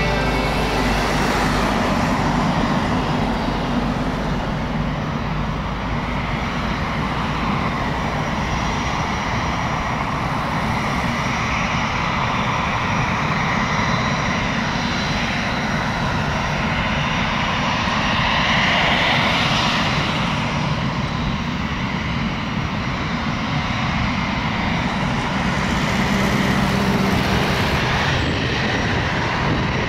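Boeing 767-300 jet engines at approach power as the airliner comes in on final with gear down: a steady engine rumble with a faint whine.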